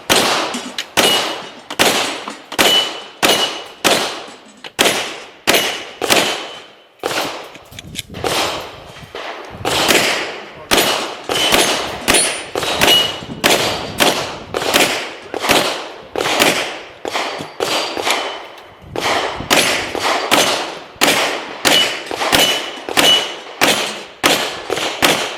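Glock pistol fired in a fast, steady string at steel targets, roughly one and a half shots a second with a couple of short pauses. Many shots are followed by the clang and ring of a hit steel plate.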